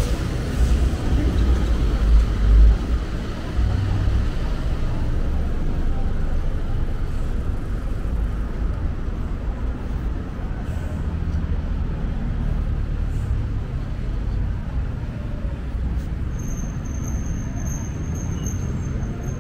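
City street traffic: a steady low rumble of passing vehicles, heaviest in the first few seconds, with a thin high whine near the end.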